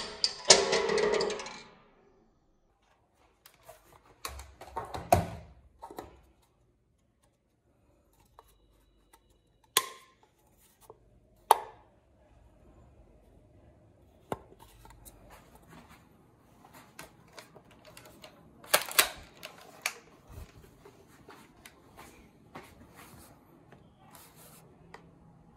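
Handling sounds: a light metal drink can clattering in the first second or so, then scattered sharp clicks and knocks as the can and a plastic toy sniper rifle are picked up and handled.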